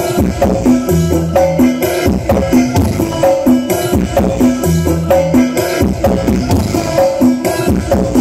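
Loud dance music from a truck-mounted carnival sound system (sound horeg). A fast, repeating percussion beat runs under a heavy bass line that returns about every two seconds.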